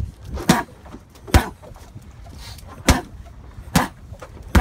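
Boxing gloves punching focus mitts: about five sharp smacks at uneven intervals of roughly a second.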